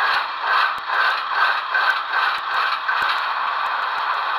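Soundtraxx Tsunami sound decoder in an HO-scale GE ES44AC model locomotive, playing its diesel engine sound through the model's small flat speaker with little bass. The running sound pulses about two to three times a second, then evens out after about three seconds.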